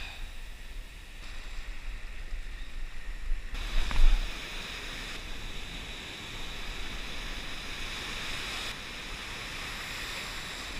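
Ocean surf washing and breaking around a wading angler, with wind on the microphone; a brief louder rush about four seconds in.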